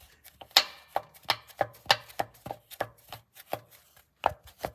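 Piston in the scuffed second cylinder of a Kia G4KD 2.0 engine knocking metal on metal in its bore as it is rocked, a quick run of sharp knocks about three a second. The very strong knock shows heavy piston-to-bore play from a badly scored cylinder.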